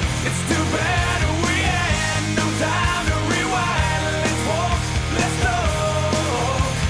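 Rock music with a steady bass and drum beat and a gliding melodic line above it.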